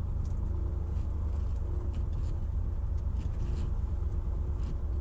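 Piper Cherokee Six's six-cylinder piston engine idling steadily at low power while it warms up, heard from inside the cabin as a steady low rumble. A few faint clicks sound over it.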